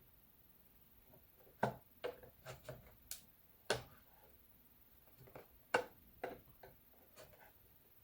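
A dozen or so irregular light clicks and taps of a small hex driver and fingers on the plastic case of a Yuneec ST-16 drone controller as it is unscrewed and taken apart.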